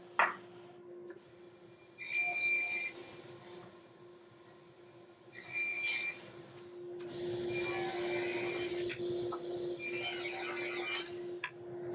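Ridgid table saw running with a steady hum, its blade cutting through pine boards in four separate passes, each cut a loud burst of high-pitched hissing whine. A sharp knock sounds just at the start.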